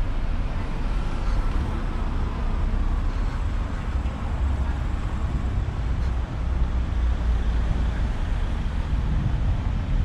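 Town-street ambience: road traffic running by, with a steady low rumble that swells a little about halfway through.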